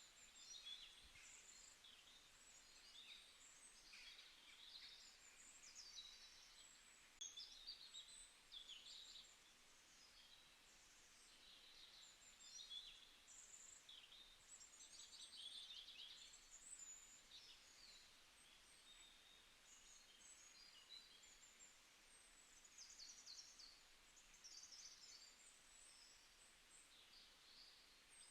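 Faint birdsong: many short chirps and trills from small birds, coming and going throughout over a light background hiss.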